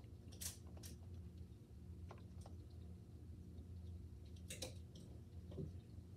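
A few faint, scattered clicks and rustles over a steady low room hum.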